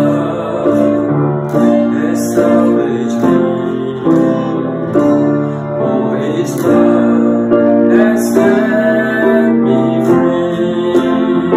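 Acoustic guitar and piano playing a slow worship song together, with new chords and notes struck about once a second.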